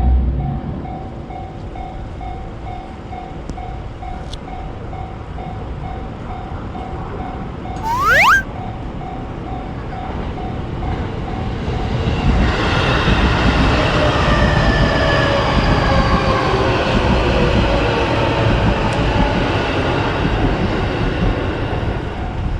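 Japanese railroad crossing alarm ringing with a steady repeated ding. About eight seconds in a short, loud rising tone sounds, and from about twelve seconds an electric train passes loudly over the crossing, its rumble carrying a whine that falls in pitch and covering the bell.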